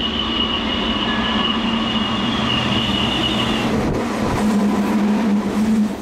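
Meitetsu 3500-series electric train running through the station at speed without stopping: a loud rush of wheels on rail and air, with a steady high whine that stops about four seconds in. The noise drops away at the very end as the last car passes.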